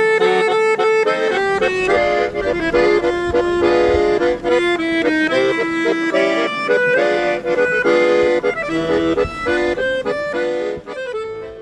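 A piano accordion played solo: a melody of quickly changing notes over held chords, fading out at the very end.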